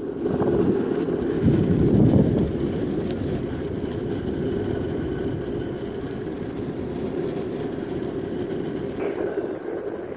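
Longboard wheels rolling over asphalt with two riders aboard: a steady low rumble, swelling briefly about two seconds in.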